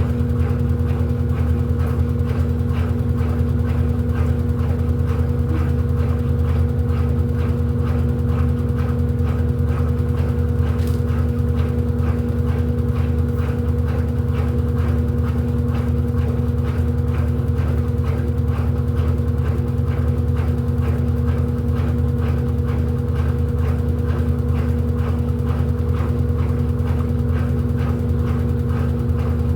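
Electrolux LED14 14 kg washing machine running: a steady motor hum with two held tones, over a fast, even, repeating swish.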